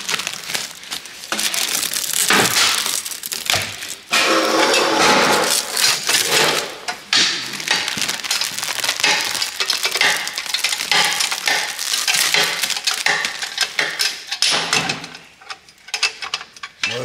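Clear plastic protective wrap crinkling and rustling loudly as it is pulled and crumpled off a new chrome exhaust muffler.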